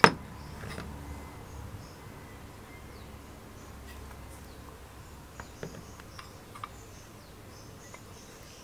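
A sharp metal knock at the start, then faint scattered clicks and taps of a restored steel bench vise being handled and turned over in the hands, over a low steady background hum.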